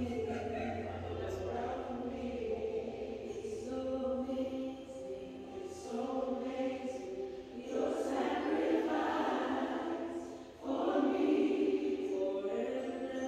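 A choir singing slow, sustained chords that grow louder about eight seconds in, dip briefly, then swell again before the end.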